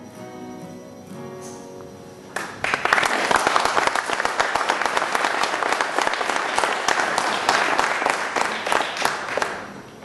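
Acoustic guitar chords ring out, then an audience breaks into applause about two and a half seconds in, clapping loudly and steadily and dying away just before the end.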